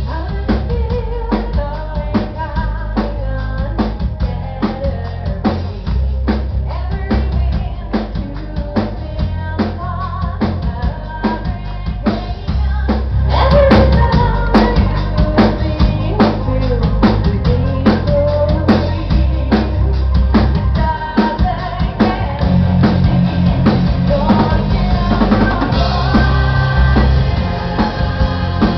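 Symphonic metal band playing live: rapid drum-kit hits over heavy bass and distorted guitars, with a woman singing lead.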